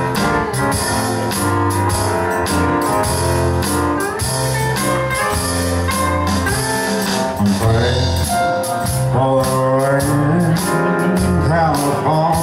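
Live band playing a song over a steady drum beat, with a man singing lead, backed by electric guitar, keyboard and saxophone.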